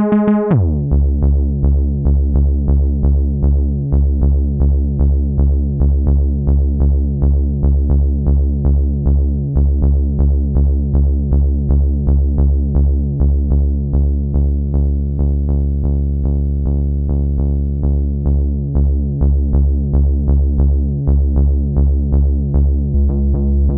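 Moog Minitaur analog bass synthesizer playing dry, with no effects: a low bass note repeating about three times a second, with a rich buzzy tone. Its timbre shifts slightly near the end as the oscillator settings are changed.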